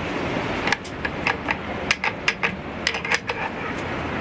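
About ten sharp metal clicks and taps, irregularly spaced, as a metal dovetail-to-Weaver rail adapter is worked against an air rifle's dovetail rail without seating, over a steady background hiss. The owner finds the rifle's dovetail slightly too small for the adapter.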